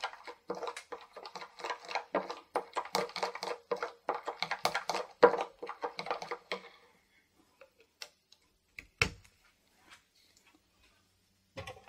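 Metal teaspoon stirring a thick honey and soy sauce glaze in a small plastic bowl: a rapid run of clicks and scrapes against the bowl that stops about seven seconds in. A single knock follows near nine seconds.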